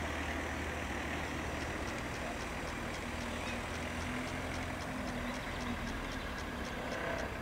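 Steady street traffic noise with a low hum and, through the middle, a held engine-like drone. From about two seconds in, a fast, even high ticking comes in at about four a second.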